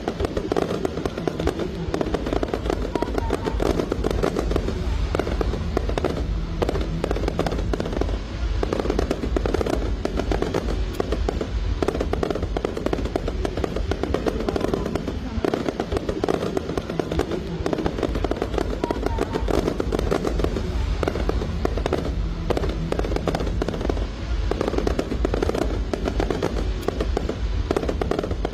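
Aerial fireworks going off without a break, a dense run of bangs and crackles, with music playing underneath.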